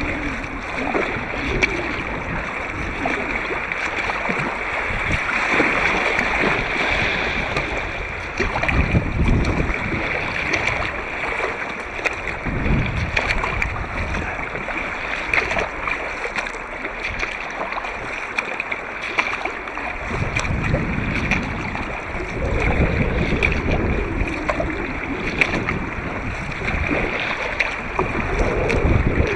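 River water rushing and splashing around an inflatable kayak, with frequent short splashes. The sound is muffled through a sealed waterproof camera housing, and low wind rumble on the microphone swells up now and then.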